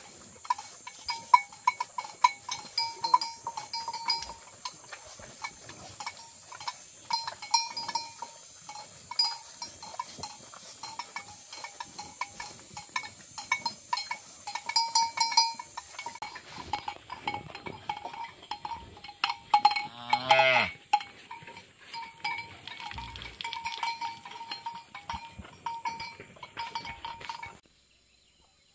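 A metal bell on a bull's neck clanking irregularly as the cattle feed at a trough. A cow gives a short call about two-thirds of the way through. The clanking stops suddenly near the end.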